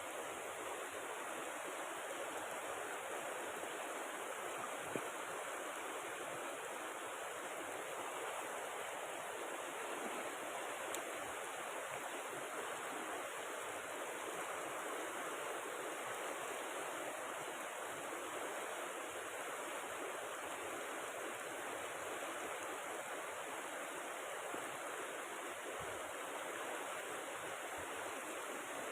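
Steady rushing water: the river rapids and the falling rain together make an even hiss, with no separate splashes or knocks.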